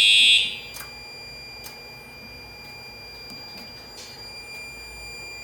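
Siemens U-MHU-MCS fire alarm horn sounding its high alarm tone, which cuts off about half a second in. After it, a faint steady high whine and soft clicks about once a second go on until near the end.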